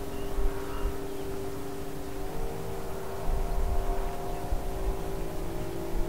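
A distant engine drones steadily, its pitch shifting a little about two seconds in, with wind gusting on the microphone.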